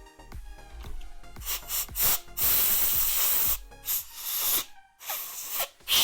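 Background music, with several hissing bursts of spray over it: one long burst of about two seconds, then shorter ones.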